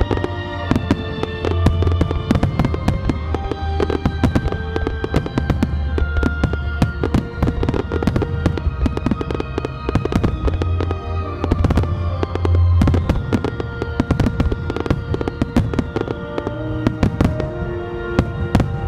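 Aerial fireworks shells bursting overhead, many sharp bangs in rapid succession, over music with held tones and a steady bass.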